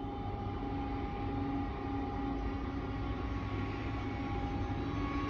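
Rhaetian Railway Ge 4/4 III electric locomotive moving slowly along the platform: a steady low rumble and hiss with a couple of held humming tones from its traction equipment and cooling blowers.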